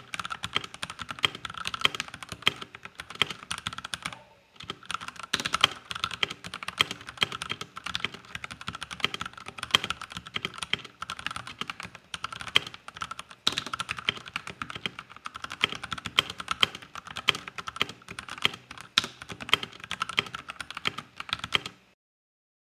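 Typing on a Keychron C1 mechanical keyboard with tactile Gateron Brown switches: a fast, uneven run of key clacks. There is a brief pause about four seconds in, and the typing stops just before the end.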